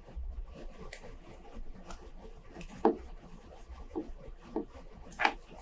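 Faint clicks and rubbing from the crown of a Seiko 7S26A automatic watch being turned by hand, moving the hands during a function check.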